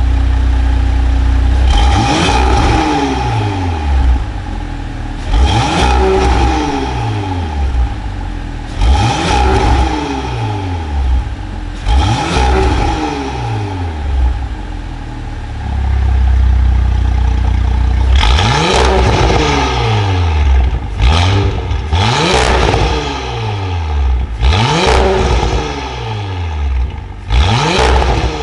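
Audi A7 C8 engine through an IPE aftermarket valved exhaust, revved from idle in short blips: four spaced a few seconds apart, a brief return to idle, then five quicker ones, each rising and falling in pitch.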